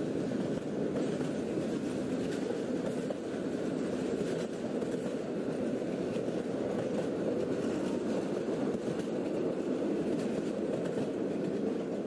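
Steady rumble of a running train.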